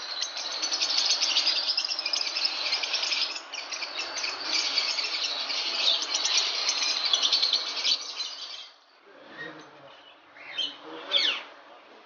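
Many caged lovebirds chattering together: a dense, continuous stream of rapid shrill chirps. After about nine seconds the chorus drops away sharply, leaving a few separate chirps and short sweeping calls.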